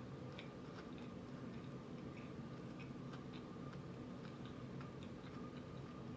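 Close-up chewing of food, with soft, scattered small clicks from the mouth and fork over a steady low background hum.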